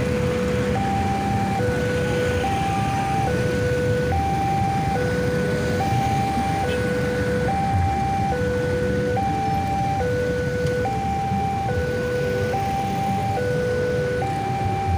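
Electronic two-tone warning alarm of a railway level crossing, sounding a steady alternating high-low chime with each note lasting just under a second, signalling that a train is approaching. Motorcycle engines and traffic rumble underneath.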